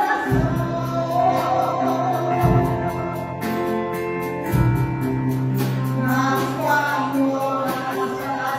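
A hymn sung with a live church band: a held, sustained chord accompaniment under a moving melody line, a bass drum striking about every two seconds and a steady cymbal tapping.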